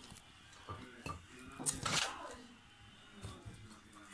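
A serving spoon clinking and scraping against a pot and plates as mashed potatoes are dished out: a few faint clinks, the loudest scrape about two seconds in.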